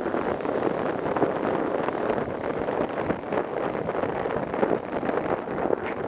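Steady rushing wind noise buffeting the microphone of a moving motorcycle, with the bike's engine running beneath it.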